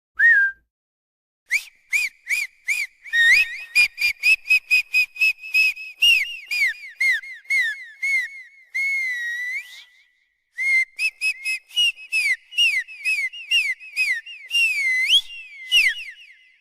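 High-pitched whistling chirps in quick runs of about four a second, each note bending up and down. About nine seconds in there is one longer held note, then a short break before the chirping starts again.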